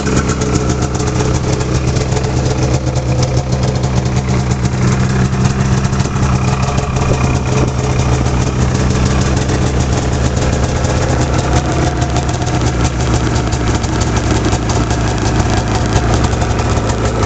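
Arctic Cat Firecat F6 snowmobile's 600 cc two-stroke twin engine, with an aftermarket air intake kit, idling steadily after start-up.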